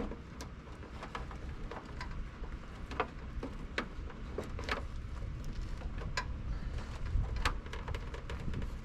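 Scattered light clicks and taps from hand work on tractor light wiring, irregular and a few a second at most, over a low steady rumble.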